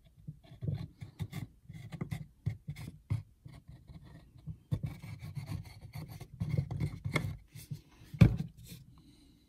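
Pine pieces being handled and rubbed on a wooden workbench while carpenter's glue is squeezed from a plastic bottle onto the joints: scattered clicks and scraping. One louder knock about eight seconds in.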